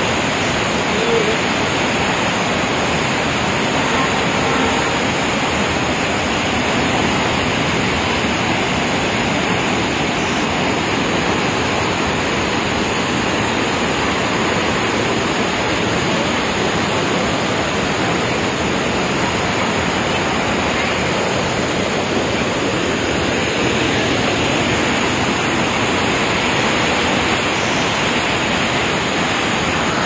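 Dudhsagar Falls in full flow: a loud, steady rush of falling water with no breaks.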